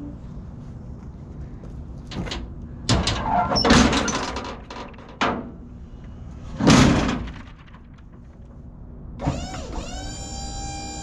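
Steel liftgate platform on a box truck being unfolded by hand: a run of metal clanks and scrapes, loudest about four and seven seconds in. Near the end the liftgate's electric hydraulic pump motor starts, its whine rising and then holding steady.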